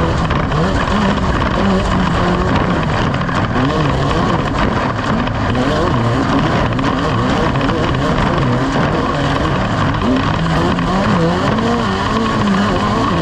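Engines of off-road desert race vehicles running loudly and steadily, with their pitch wavering up and down.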